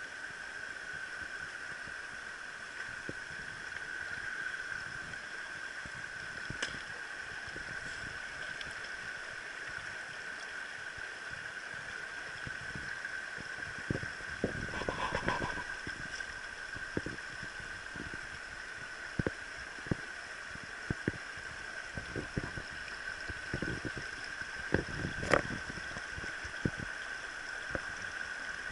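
Mountain stream flowing over rocks, heard close to the water's surface, with scattered knocks and splashes that grow more frequent past the middle, the loudest a little before the end.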